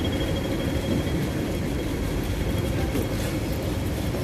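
Busy city street noise heard while walking across a crossing: a steady rumble of traffic, with a faint high tone fading out in the first second or so.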